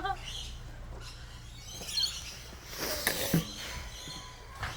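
A few scattered bird chirps over a low steady hum, with a short falling squeak about three seconds in and a brief knock near the end.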